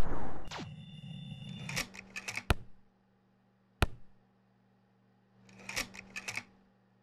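A few short clusters of sharp clicks: a run of clicks about two seconds in, a single click near four seconds and another run near six seconds. Before them a loud noise dies away in the first half-second.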